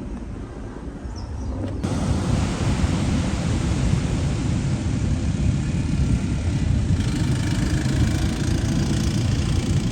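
Heavy ocean surf roaring under wind rumbling on the microphone. The noise comes in suddenly about two seconds in and then holds steady and loud.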